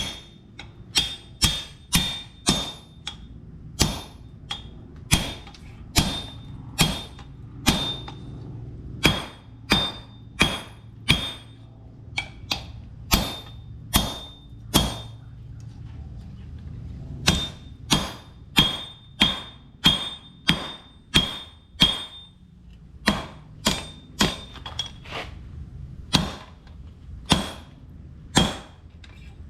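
Blacksmith's hammer striking hot steel on an anvil while forging a railroad spike into an axe head: steady blows about two a second, each with a bright metallic ring, broken by a couple of short pauses. A low steady hum runs underneath.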